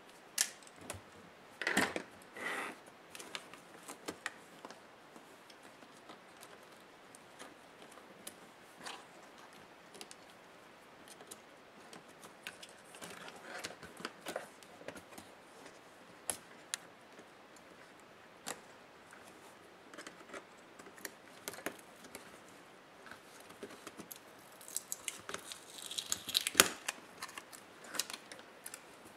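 Laptop parts being handled and taken apart by hand: scattered light clicks and taps of plastic and small metal pieces, with a few short scraping stretches, the longest near the end.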